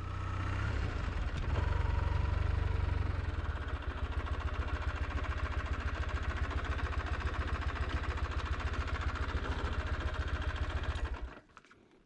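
Motorcycle engine, the Kawasaki W800's air-cooled parallel twin, running at idle with an even, steady throb. It cuts off about eleven seconds in.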